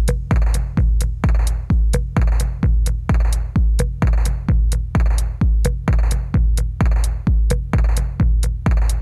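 Background electronic music with a steady drum-machine beat: a kick drum about twice a second, with hi-hats and snare hits.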